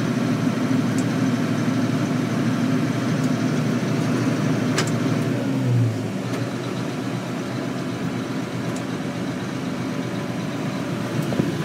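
Allis-Chalmers tractor's diesel engine running steadily at low revs, heard from inside the cab; its sound drops slightly about six seconds in.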